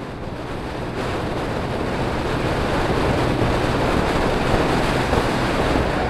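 Heavy wind rush over the microphone of a moving motorcycle, with a steady low engine hum beneath, building in loudness over the first few seconds.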